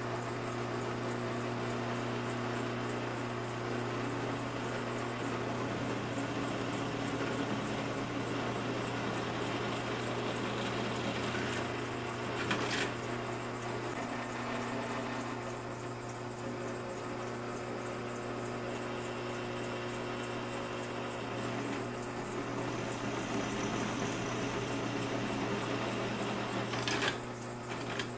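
Drill press motor running steadily while its bit cuts holes through 2-inch steel angle, with a short metallic clink about halfway through.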